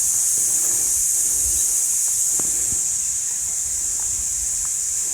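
A steady, high-pitched chorus of insects, with a few faint knocks and clicks about halfway through.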